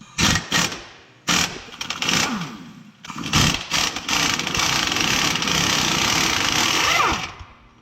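Impact wrench breaking loose a stubborn rear shock bolt: a few short blips, then a run of about three seconds of hammering that winds down near the end.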